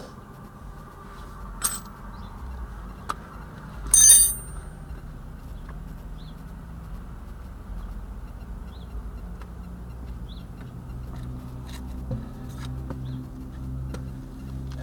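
Hand tools working on steel: a couple of sharp clicks, then about four seconds in one loud metallic clang that rings briefly, over a low steady hum.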